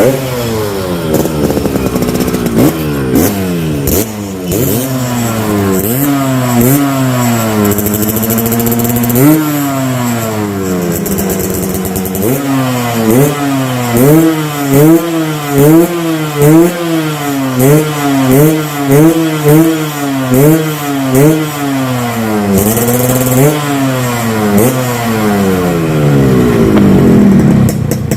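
Yamaha RX-King two-stroke single-cylinder engine revved through its hollowed-out muffler. Its pitch sweeps up and down in long revs at first, then in a run of quick throttle blips about three every two seconds through the middle, then in longer revs again near the end.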